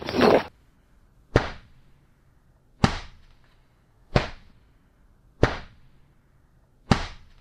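A person's cry breaks off in the first half second. Five sharp strikes follow, evenly spaced about every 1.3 seconds, each dying away quickly.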